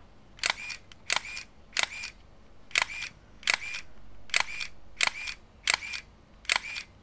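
Canon EOS 500N film SLR firing its shutter over and over, about nine releases, apparently at its fastest speed of 1/2000 s. Each release is a quick double click with a brief whir.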